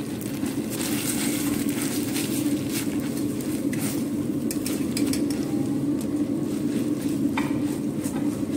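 Boiled noodles being stirred and tossed with a utensil in a stainless steel pot of melted butter, the utensil clicking and scraping against the metal, over a light sizzle and a steady low hum.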